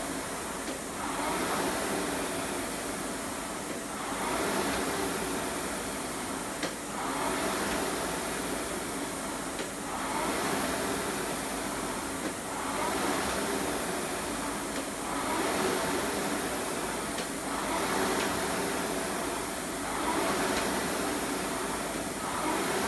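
Concept2 indoor rowing machine's air-resistance flywheel whooshing, surging with each drive stroke and fading on the recovery, about one surge every two and a half to three seconds. A light click comes at some strokes.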